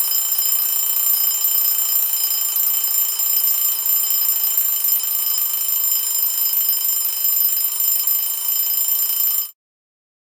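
Mechanical alarm clock bell ringing continuously, a fast rattling ring with high bell tones, cutting off abruptly about nine and a half seconds in.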